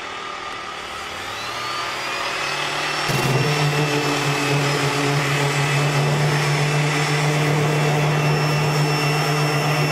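Electric random orbital sander switched on: its motor spins up with a rising whine about a second in, then runs steadily, becoming louder about three seconds in. An air compressor runs steadily underneath as it charges its tank.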